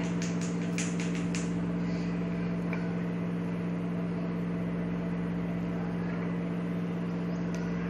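Steady low electrical hum of a running motor or appliance, with a few faint soft clicks in the first second and a half.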